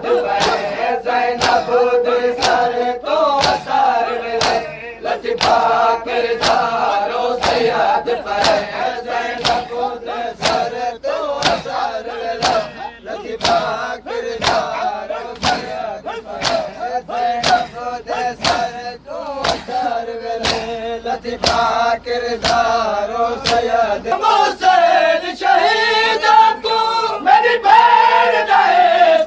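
A group of men chanting a noha, a Shia mourning lament, in unison while beating their chests in time: sharp, even slaps just over once a second under the chanting.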